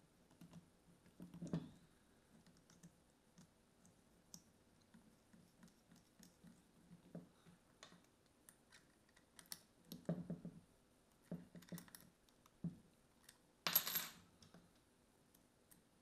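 Small metal parts of a Daiwa 7HT Mag baitcasting reel being handled while its handle is reassembled: scattered light clicks and rattles, with a brighter metallic clatter about 14 seconds in.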